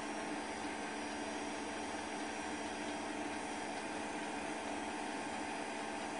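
Steady hiss with a faint hum and no distinct events: the background noise of a transfer of silent 8 mm film.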